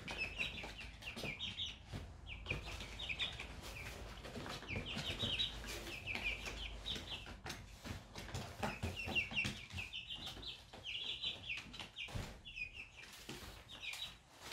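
Half-grown chicks peeping over and over in short high cheeps that come in quick runs, with scattered light taps and scratches.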